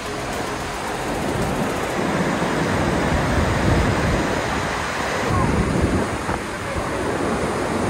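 Flooded Parvati River running high and fast: a steady, loud rush of churning whitewater.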